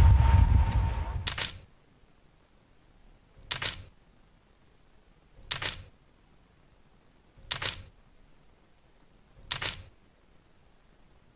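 Camera shutter clicking five times, evenly about every two seconds, with near silence between. At the start, the rumble of a landing jet airliner, with wind, fades out over the first second and a half.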